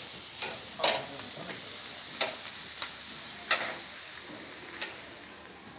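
Meat sizzling on a hot barbecue grill plate, a steady high hiss. About five sharp clacks stand out at irregular intervals.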